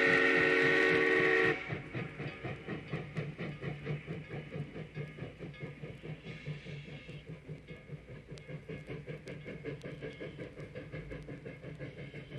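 New Hope & Ivyland #9's steam whistle blowing, held for about a second and a half and then cut off sharply. The 0-6-0 steam locomotive then runs on with a quick, even rhythm of beats, about four a second.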